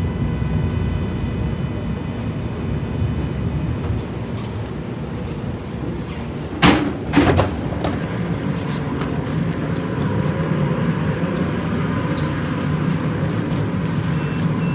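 Steady low rumble inside a light-rail train car, with two loud clunks about seven seconds in, half a second apart.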